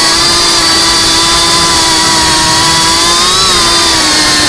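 GEPRC Cinelog35 FPV drone's brushless motors and propellers buzzing at a steady cruising throttle, with a brief rise in pitch a little over three seconds in. Heard through the onboard camera's microphone.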